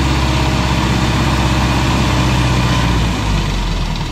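Escorts Hydra 14 mobile crane's diesel engine running steadily, then easing off about three seconds in as its pitch and level drop.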